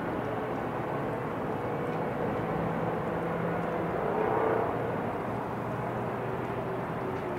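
Steady distant city traffic rumble heard from high above the streets, swelling briefly about four seconds in as something louder passes.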